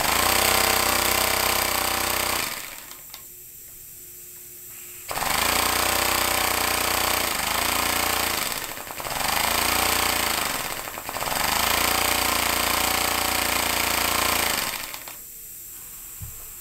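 Compressed air piston engine running fast with a rapid exhaust chatter, worked by a diaphragm-valve throttle. It cuts off about two and a half seconds in, starts again about five seconds in, slows and picks up speed twice as the throttle is eased and reopened, then shuts off again near the end.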